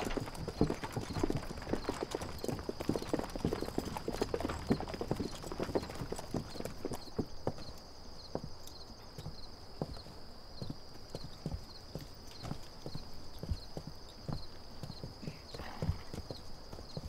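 Horse hooves clopping on hard ground, quick and dense for the first several seconds, then slower scattered steps. A steady high-pitched tone runs underneath.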